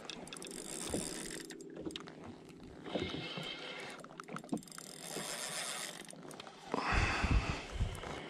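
Water lapping against the hull of a drifting jet ski, with small clicks and a louder rush of noise near the end.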